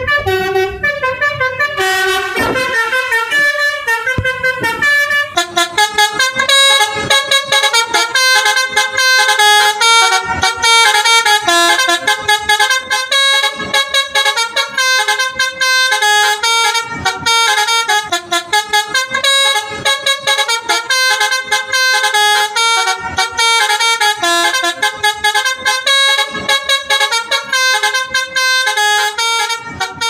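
Multi-tone musical vehicle horn of the kind copied by buses across Indonesia, playing a rapid tune of short, changing notes in a steady rhythm.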